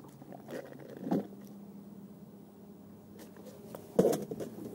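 Two short knocks, one about a second in and a louder one near the end, from handling in a canoe as the body-mounted camera is jostled, over a steady low hum.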